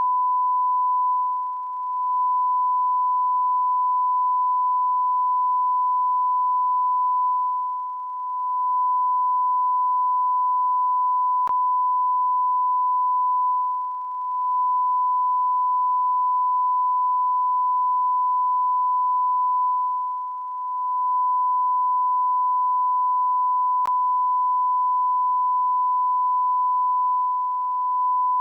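A continuous pure electronic beep tone, one steady pitch like a censor bleep or test tone, held without a break. Its level dips slightly about every six seconds.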